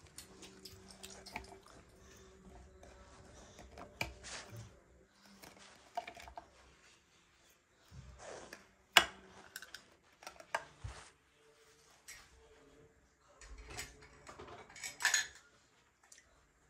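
Toiletries being handled and set down on a plastic shelf and into a ceramic cup: scattered clicks, clinks and knocks, the sharpest about nine seconds in.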